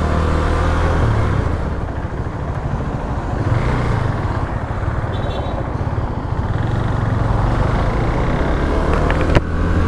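Motorcycle engine running under way with steady wind noise rushing over a lapel mic inside the rider's helmet, the low engine hum under the hiss of the wind. A single sharp click near the end.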